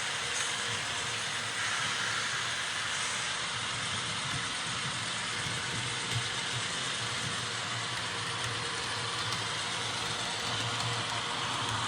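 HO scale model train running on the layout track: a steady rolling hiss from the wheels on the rails over a low motor hum.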